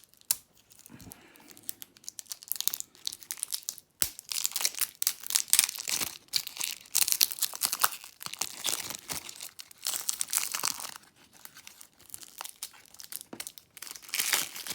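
Plastic shrink-wrap being crinkled and torn off board game card decks, a dense crackling that comes in bouts, busiest from a few seconds in until past the middle and again near the end.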